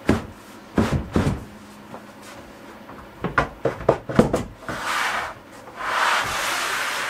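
A large wooden board being handled on a workbench: a series of wooden knocks as it is lifted and set down, then the board sliding and rubbing across the bench top for about two seconds near the end.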